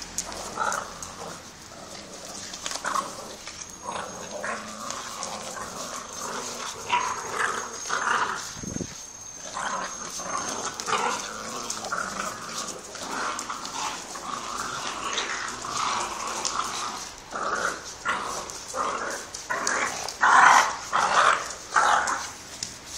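Pit bull and puppies vocalising in rough play: a run of short yips, whines and play growls, densest and loudest near the end.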